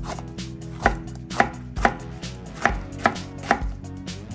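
Chef's knife slicing green peppers into narrow strips on a wooden cutting board. The blade knocks on the board about twice a second.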